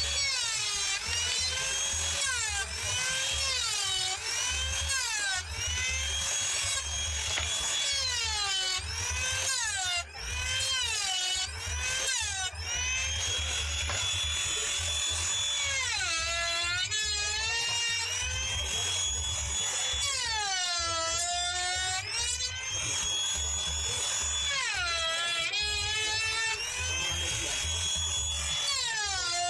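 Electric wood trim router running and cutting wood: its high whine drops in pitch each time the bit bites into the wood and rises back as it eases off, over and over, with deeper dips in the second half.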